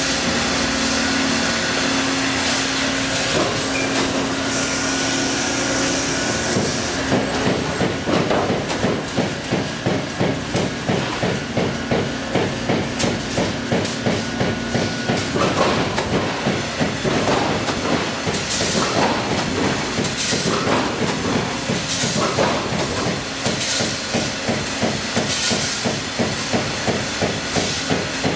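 Steady machine hum, then about seven seconds in an Amada CNC turret punch press starts punching sheet metal: a fast, even, unbroken run of sharp hits.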